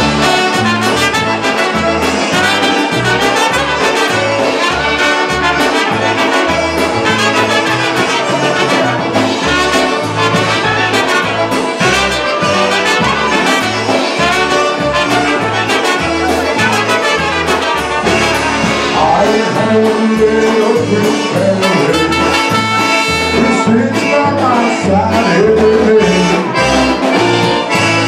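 Live polka band playing: two trumpets carry the melody over accordions, bass guitar and drums, with a steady, even bass-and-drum beat.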